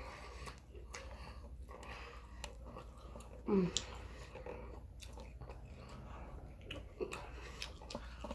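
Close-up chewing and biting of fried chicken, with small crunches and wet mouth clicks. A short voiced sound from the eater, the loudest moment, comes about three and a half seconds in.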